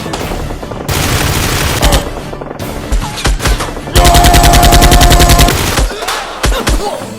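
Bursts of rapid automatic gunfire, a dubbed gun sound effect. The longest and loudest burst starts about four seconds in and lasts about a second and a half.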